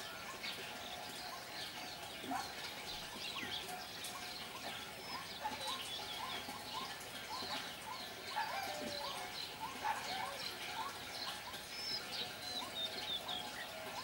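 White-breasted waterhen calling: a short, upward-hooked note repeated over and over, about two a second through the second half. Other small birds chirp higher over it.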